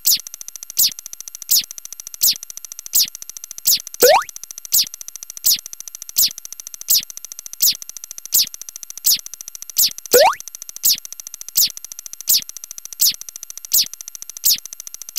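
Looping electronic sound effect: short high chirps, each falling in pitch, repeat about every three-quarters of a second over a faint steady high tone. About every six seconds a rising swooping tone cuts in.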